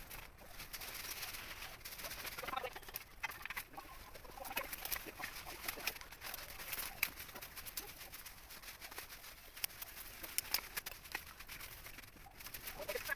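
Birds calling in short, scattered calls, with many small clicks throughout.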